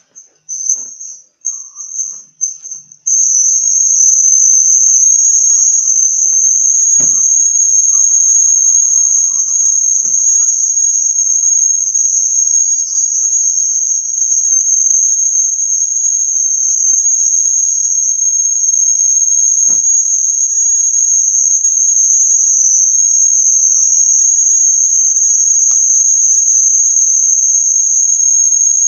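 High-pitched cricket trill. It comes in short pulses at first, then turns into one continuous trill about three seconds in.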